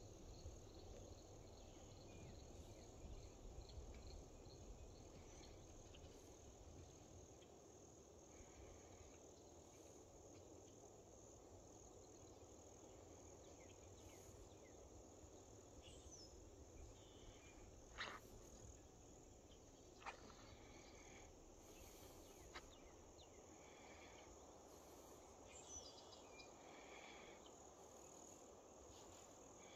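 Faint, steady high-pitched trilling of insects in the grass, with a run of evenly repeated ticks in the first few seconds, a few scattered bird chirps, and a light low rumble of wind on the microphone.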